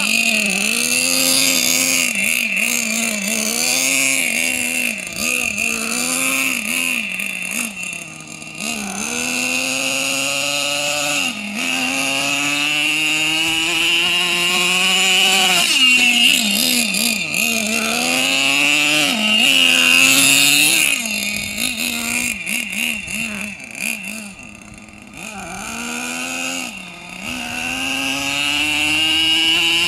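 Small two-stroke nitro glow engine of a Traxxas T-Maxx Classic RC monster truck, revving up and down over and over as the truck is driven, with a high steady whine over the engine note. It goes quieter briefly a few times, most deeply about three-quarters of the way through.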